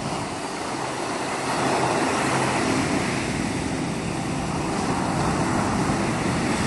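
A steady rushing noise that swells slightly about a second and a half in.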